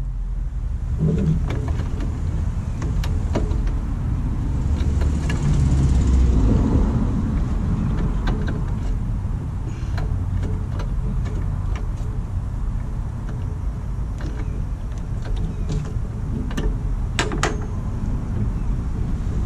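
Small clicks and knocks of parts and fittings being handled under a Jeep's hood, over a steady low rumble that swells about five to seven seconds in.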